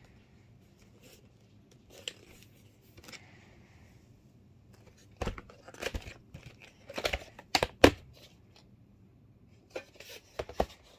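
Hard plastic VHS clamshell case being handled and opened, and the videocassette lifted out: a string of plastic clicks, knocks and rustles, busiest from about five to eight seconds in.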